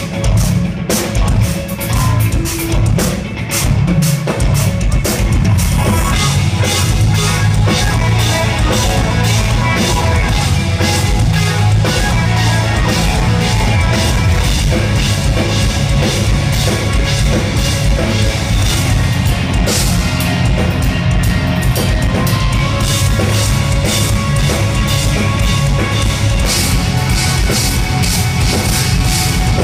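Live instrumental progressive metal band playing loud: distorted electric guitars over a fast, busy drum kit. The drumming starts choppy and settles into a dense, steady groove about six seconds in.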